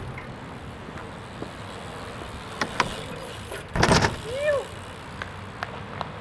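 BMX bike riding on skatepark ramps: steady tyre rolling noise with a few sharp clicks, and a loud clattering hit about four seconds in, followed by a short rising-and-falling squeak.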